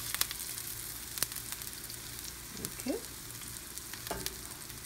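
Grated zucchini patties frying in oil in a nonstick skillet: a steady sizzle with scattered pops and crackles. A short rising squeak sounds a little past halfway.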